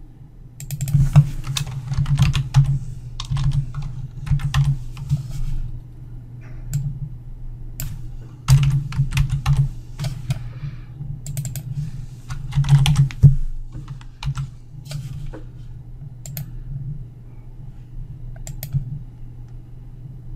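Typing on a computer keyboard in short runs of keystrokes with pauses between, then a few scattered single keystrokes. A low steady hum runs underneath.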